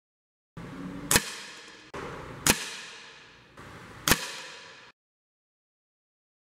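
.177 air rifle firing pellets at a paper target: three single sharp shots about a second and a half apart, each in its own short clip over faint background hiss, with dead silence between.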